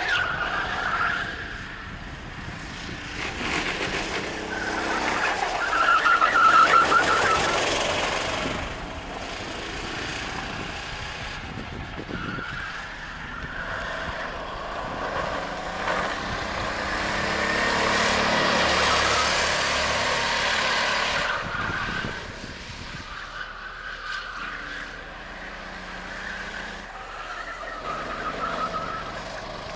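Sodi RT8 rental go-kart four-stroke engines buzzing as karts lap the track, the pitch rising and falling with throttle. The sound swells as karts come close, loudest about six seconds in and again around eighteen to twenty seconds, then fades.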